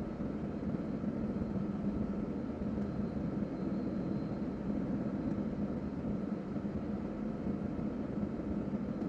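Steady low rumble of a vehicle running, with no sudden sounds.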